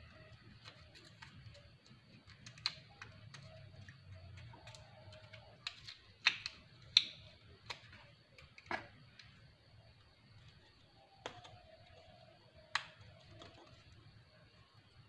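Hands handling small plastic parts on a balsa glider fuselage: scattered sharp clicks and taps as a plastic cover is fitted over the dethermalizer's electronics pod, about a dozen in all, the loudest about seven seconds in.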